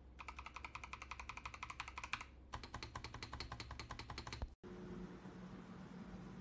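Fast typing on an AKKO MOJIKE GK1 mechanical keyboard with AKKO V2 switches, a rapid run of key clicks. It cuts off abruptly after about four and a half seconds, leaving a low steady hum.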